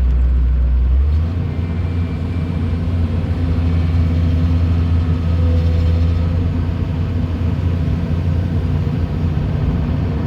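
An engine running steadily, its low note stepping up slightly about a second in.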